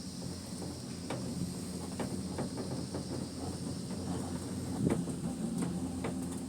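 Skyrail cableway gondola travelling along its cable: a steady low hum with a few light clicks and creaks, over a steady high hiss.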